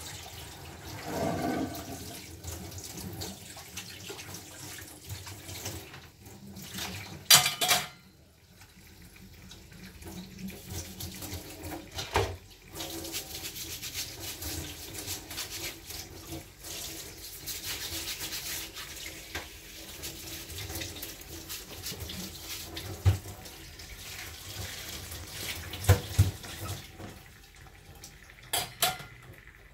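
Kitchen tap running into a sink while things are washed, with several sharp knocks of kitchenware through it.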